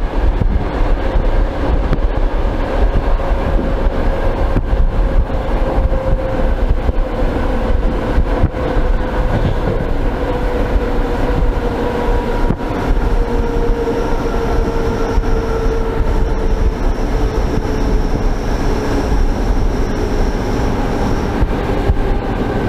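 Old suburban electric train running at speed, heard through an open, glassless vestibule window: a steady rumble of wheels on rails and rushing air, with a whine that slowly falls in pitch. A faint high whistle comes in about halfway and stops near the end.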